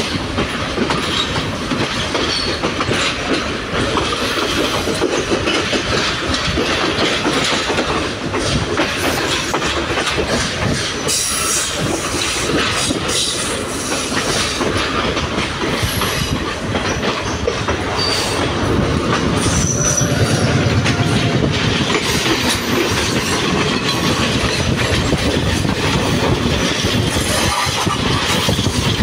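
Old passenger train running, heard from an open carriage doorway: a steady rattle and clatter of wheels over rail joints and points, with a few brief high wheel squeals. The low rumble swells louder about two-thirds of the way through.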